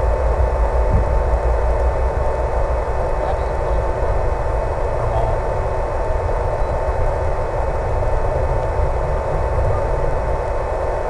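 HobbyZone Super Cub electric RC plane in flight: a steady motor whine at constant throttle over rumbling wind noise.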